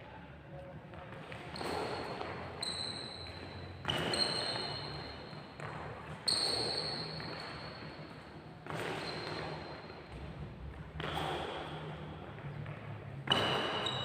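Court shoes squeaking on a wooden sports-hall floor during badminton footwork, with feet landing and sliding about every two seconds, six times, each landing carrying a short high squeak.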